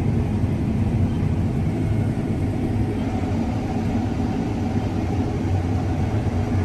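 A vehicle's engine running steadily, a constant low rumble.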